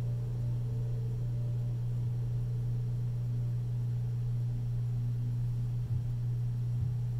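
A steady low hum that holds one pitch throughout, with nothing else standing out.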